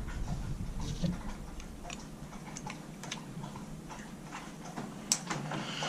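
Scattered light clicks and ticks of a wrench and small metal parts being handled on an outboard carburetor as its fittings are taken off, with a sharper click about five seconds in.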